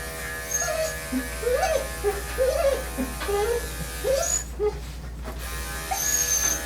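Electric dog grooming clippers running steadily, with short high whimpers from the dog.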